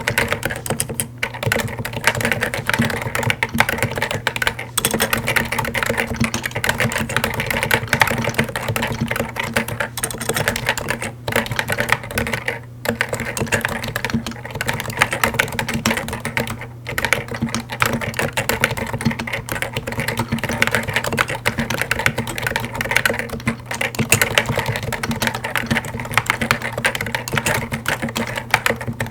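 Continuous paragraph typing on a Topre Realforce Hi-pro keyboard: its 45 g electrostatic capacitive rubber-dome switches under stock Hi-pro keycaps give fast, dense, muted keystrokes, with a few short pauses.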